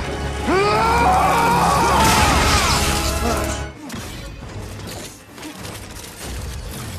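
Action film soundtrack: dramatic score under loud crashing, smashing effects and low rumble, with a drawn-out wavering pitched sound over it for the first few seconds. About four seconds in the mix drops to quieter music and scattered hits.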